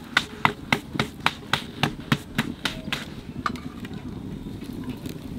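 Wood fire burning in a clay stove under an iron tawa, a steady low rush, with a run of sharp, evenly spaced taps, about four a second, for the first three seconds, then only a few.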